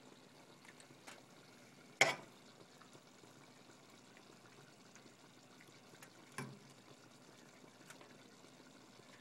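A metal fork knocking twice against a stainless steel pot while stirring angel hair pasta, the first knock sharp and loud about two seconds in, the second softer about six seconds in, over the faint bubbling of the boiling pasta water.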